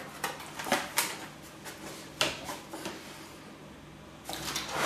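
Cardboard wine-kit box being opened and unpacked by hand: scattered light knocks and scrapes, with a louder rustling scrape near the end.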